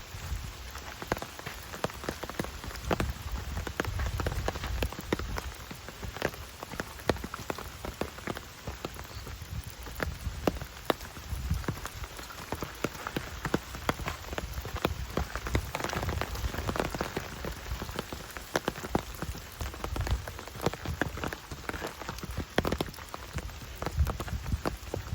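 Steady rain falling, with many separate drops ticking sharply close by over a soft hiss, and a low rumble underneath.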